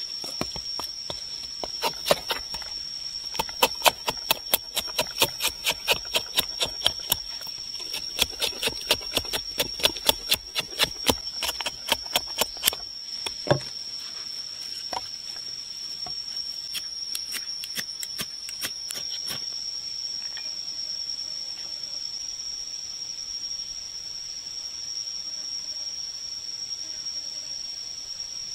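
A knife blade chopping and shaving dry sticks into kindling: a quick series of sharp wooden knocks and cuts for the first half, thinning to a few scattered strokes, then only the background.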